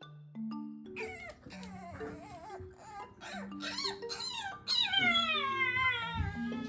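Young puppy whining and crying in repeated high-pitched calls, the kind of attention-seeking cry of a puppy left in its pen, ending in a long falling whine. Soft mallet-percussion background music plays underneath.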